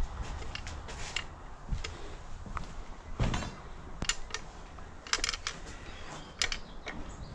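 Handling noise from a hand-held object being turned and moved: scattered clicks and knocks, with a short rapid rattle about three seconds in.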